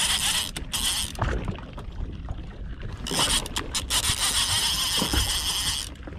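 Spinning fishing reel being cranked to bring in a hooked fish. It gives a high whir in two bouts, a short one at the start and a longer one from about three seconds in, with a low rumble underneath.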